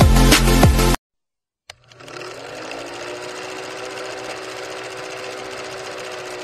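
A second of electronic music that cuts off, then, after a click, an old film projector running: a steady fast clatter with a faint hum.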